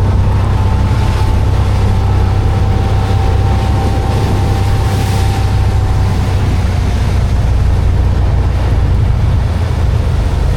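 Vehicle running: a steady, loud low rumble of engine and road noise, with a faint thin whine over it for the first several seconds.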